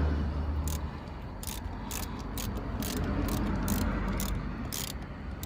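2004 Ford Mustang engine idling as a steady low hum, stronger at the very start, with a scatter of sharp, irregular clicks over it.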